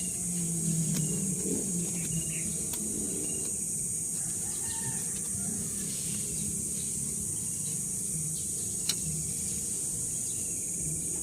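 Outdoor ambience: a steady high insect drone with faint, scattered bird chirps over a low background rumble, and one sharp click about nine seconds in.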